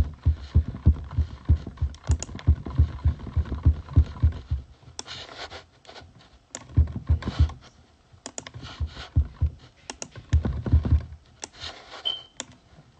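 Fast typing and tapping on a computer keyboard, dull taps mixed with sharper clicks, in bursts with short pauses.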